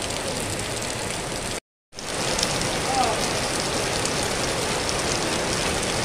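Heavy rain pouring onto pavement and plant leaves: a steady, even hiss of falling water. The sound cuts out to silence for a moment shortly before two seconds in, then comes back slightly louder.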